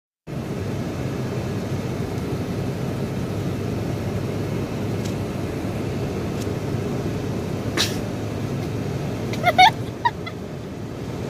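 Steady road and engine noise inside the cabin of a moving vehicle, with a single click about eight seconds in and a few short, high-pitched voice sounds near the end.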